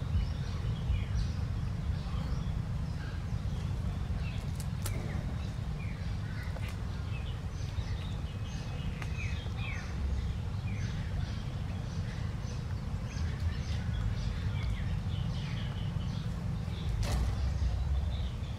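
Birds chirping: many short, falling chirps over a steady low rumble, with a brief rustle near the end.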